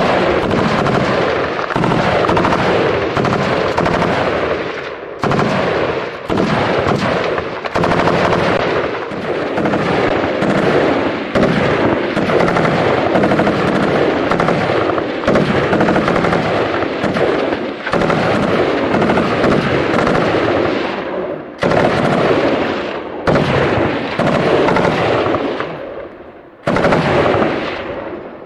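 FN Minimi 5.56 mm light machine guns firing long bursts of automatic fire, with a few brief pauses between bursts.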